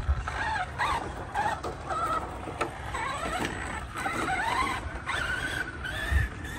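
Arrma Mojave 4S RC truck's brushless motor whining, its pitch rising and falling with the throttle, while the tyres crunch over dirt and gravel. There is a thump at the very start and another about six seconds in.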